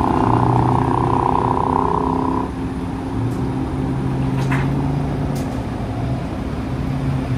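Heavy rotator tow truck's diesel engine running fast to drive the boom hydraulics as it holds and swings a suspended truck. About two and a half seconds in the higher part of the engine note drops away, leaving a lower steady engine hum. A few light clicks follow.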